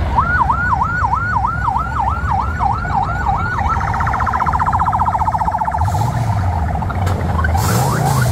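Electronic vehicle siren on a yelp setting, sweeping up and down about three and a half times a second, then switching to a much faster warble about 3.7 seconds in, which fades out around 6 seconds. Near the end a vehicle engine revs up and falls back twice under the siren's last moments and traffic noise.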